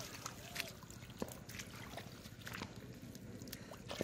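Hands and feet working in shallow, muddy water: light, intermittent splashing and squelching with scattered small clicks, as a fish is grabbed from the mud.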